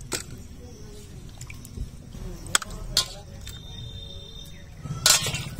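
Wet fish pieces being lifted by hand out of a steel bowl of water and set on a steel plate: soft wet handling with a few sharp clinks against the metal, and a louder burst of hissing noise near the end.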